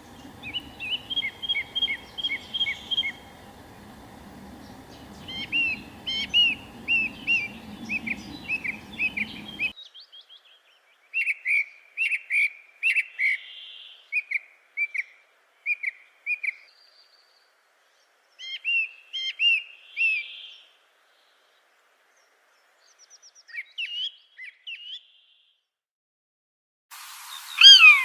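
Small bird singing in repeated bursts of quick, high chirping notes with short pauses between phrases. A low background noise under the song cuts out abruptly about ten seconds in, and a louder call comes near the end.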